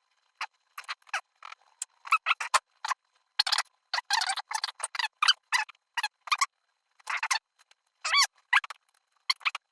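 Irregular strokes of rubbing as a small machined metal part is wiped clean, with a few short squeaks.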